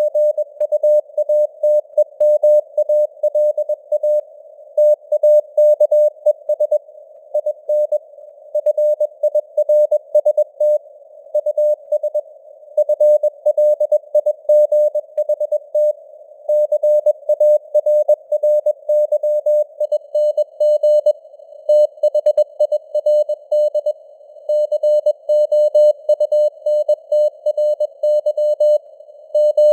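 Morse code (CW) at 21 words per minute: a single steady-pitched beep keyed on and off in dots and dashes, with short gaps between letters and longer ones between words. It runs over a soft, constant hiss of simulated radio noise.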